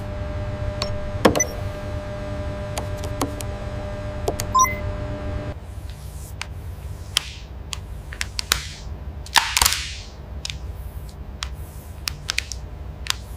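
A steady machine hum with a few light clicks, then a lower hum under several rustling swishes of clear plastic protective film being handled on a car door handle.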